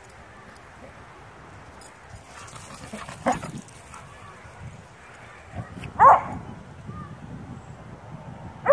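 A dog playing rough with another dog gives short, pitched yips or barks: one about three seconds in, a louder, bending one about six seconds in, and another just at the end. Faint low rustle between them.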